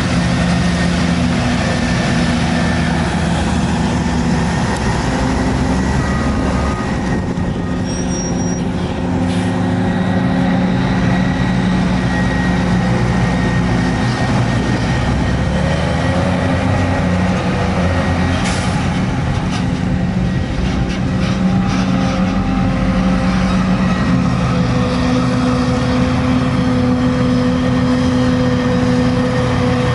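Heavy diesel farm machinery running steadily under load: a forage harvester chopping maize, with tractors and silage wagons working alongside. The engine tones shift slightly in pitch now and then.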